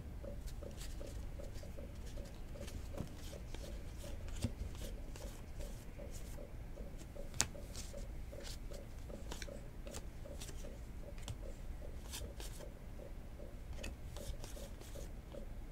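Football trading cards being flicked and slid one by one off a stack in the hands: a string of light papery flicks and snaps, one sharper snap about seven seconds in, over a low room hum.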